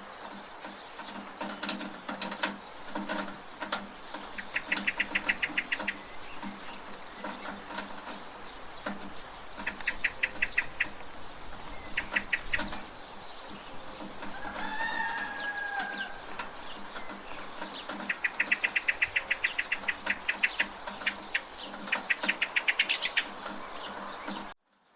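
Village ambience under steady rain, with a rooster crowing once about halfway through and several bursts of rapid, rattling bird chatter. The sound cuts out abruptly just before the end.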